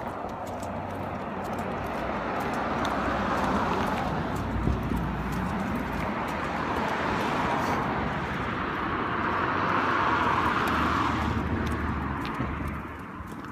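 Cars passing on the street: two swells of tyre and engine noise, one about three to five seconds in and a louder one about nine to twelve seconds in.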